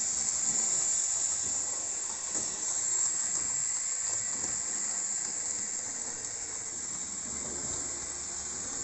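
Piko BR64 model tank locomotive running on the layout with its train of model carriages: a steady whir and rumble of the motor and wheels on the track, over a constant high hiss.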